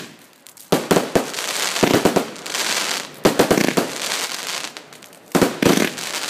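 Multi-shot firework cake firing a barrage: sharp bangs in quick clusters, a few groups of two or three within a second, with a dense crackle of bursting stars filling the gaps between them.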